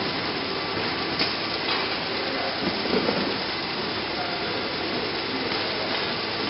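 Conveyor sorting line running: a steady mechanical rattle and hum from the modular plastic belt and roller conveyors, with a few short knocks, one about a second in and a cluster about three seconds in.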